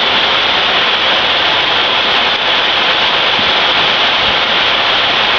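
Heavy rain pouring down steadily during a thunderstorm: a loud, even hiss.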